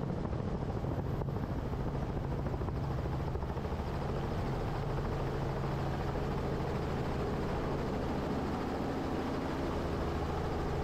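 Helicopter engine and rotor drone in flight, a steady hum with no change in pitch or level.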